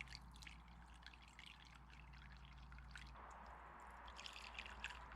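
Acetone being poured into a combustion chamber of a Honda H22 cylinder head: a faint trickle with small splashes and drips, denser near the end. The chamber is being filled to see whether the valves seal.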